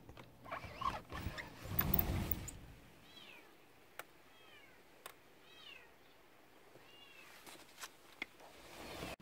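A kitten crying from somewhere out of sight: several thin, high, faint meows from about three seconds in. The first few seconds hold rustling handling noise.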